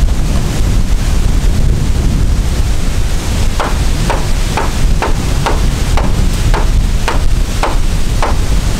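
Wind buffeting the microphone, with a run of about ten hammer blows, two a second, starting about three and a half seconds in.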